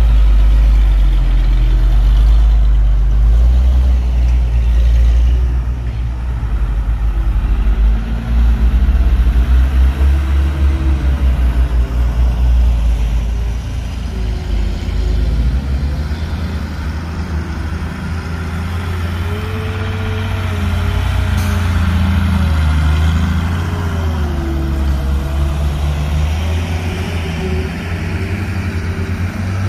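Heavy diesel engine of construction machinery running with a deep rumble, its pitch rising and falling as it revs and eases off. The rumble is loudest in the first half.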